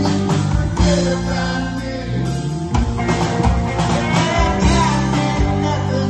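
Live rock band playing loud and full: electric guitars, bass and drum kit, with a male lead vocal.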